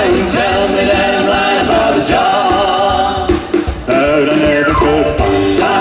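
Live doo-wop band: a male vocal group singing in harmony, holding sustained notes, over drums and band backing.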